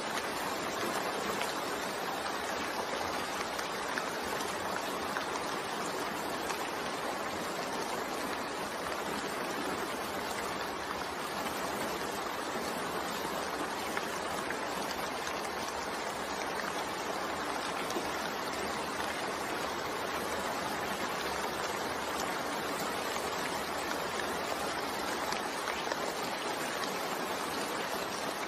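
Steady rain falling, a continuous even hiss of water with no distinct drops standing out.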